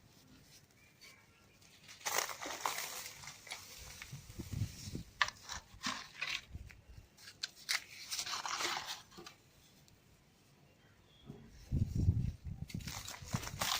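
Dry cement balls and cubes being crushed, crumbling with gritty crunching and crackling in spells. A pause of about two seconds, then one heavier, deeper crunch near the end, followed by more crackling.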